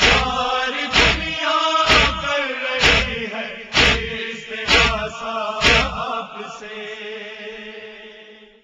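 Noha chanted in Urdu over a matam beat of heavy thumps about once a second. The thumps stop about six seconds in, and the last held note fades out.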